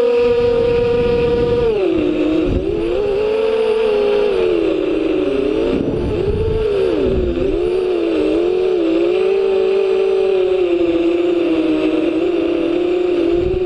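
FPV drone's electric motors and propellers whining, heard from the drone itself. The pitch holds steady for about two seconds, then dips and swoops up and down with the throttle as it manoeuvres, falling away at the very end.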